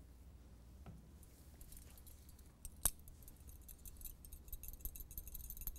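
Glass test tube clinking and rattling in a metal wire test-tube holder as it is handled and shaken to dissolve the salt into a solution. There is one sharp clink about three seconds in, then a quick run of light metallic jingles.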